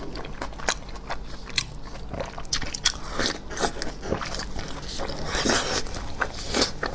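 Close-miked mouth sounds of biting into and chewing a soft red sausage, with irregular smacking clicks that grow louder and more frequent about halfway through.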